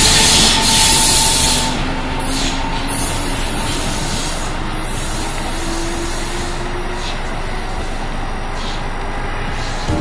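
Amtrak Keystone train departing and receding, pushed by its trailing ACS-64 electric locomotive. A loud rush of rail noise drops off about two seconds in, then gives way to a steadier rumble with a faint whine that rises slowly in pitch as the train draws away.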